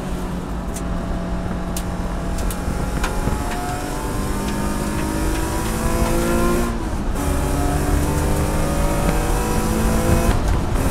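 Race car engine heard from inside the cabin, accelerating hard under full throttle. Its pitch climbs through the gears, with two quick upshifts, about seven seconds in and again near the end.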